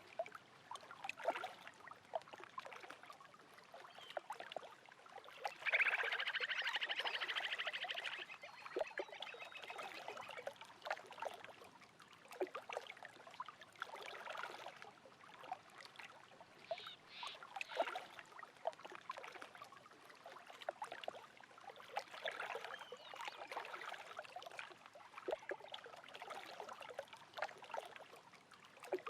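Small waves lapping and splashing irregularly at a lake shore. About six seconds in, a bird gives a rapid trill lasting about two seconds, the loudest sound here.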